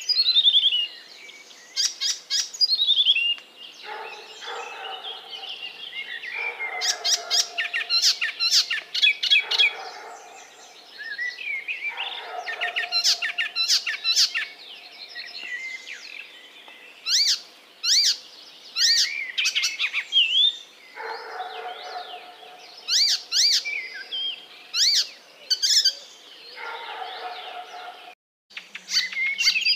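Small pet parrots chirping and calling in repeated bursts of quick, sharp, high chirps. The chirping breaks off abruptly for a moment near the end.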